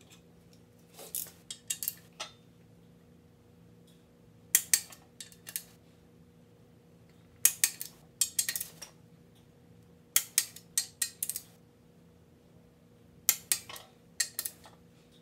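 Wrench ratcheting and clicking on the main bearing cap bolts of a 4.6 engine block, in five short bursts of sharp metallic clicks about every three seconds as the bolts are tightened.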